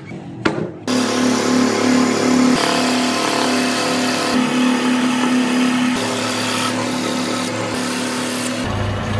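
Scroll saw running with a steady hum, its fine reciprocating blade cutting through a thick wooden board; it comes in loudly about a second in.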